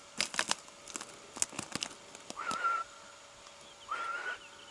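Scattered light clicks and rustling, then two short, steady, whistle-like tones about a second and a half apart.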